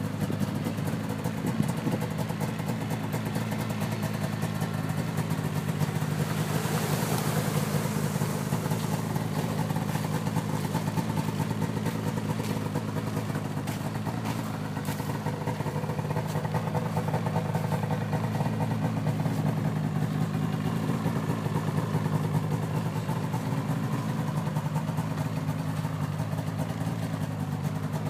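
2007 Ski-Doo GSX 600HO SDI snowmobile's two-stroke twin-cylinder engine idling steadily, its pitch holding even.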